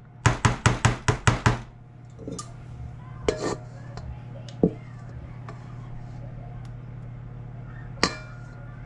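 A quick, even run of about six sharp knocks, about four a second, on a metal springform pan of cheesecake batter. After that come a few isolated clicks and scrapes of a spatula working the batter from a mixing bowl into the pan, over a steady low hum.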